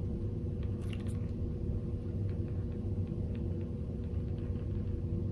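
Steady low background hum with a faint steady tone in it, and a few faint clicks about a second in.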